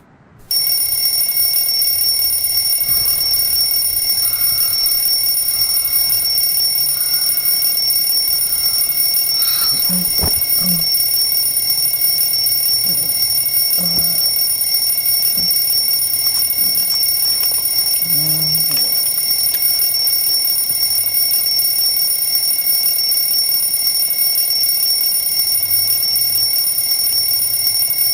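Electronic alarm-clock tone sounding, a shrill steady high-pitched sound that comes on with a click just after the start and holds without a break.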